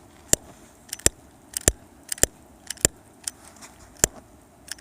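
Sharp metallic clicks, about eight, a half second to a second apart, from a small refillable emergency lighter being worked in the hand.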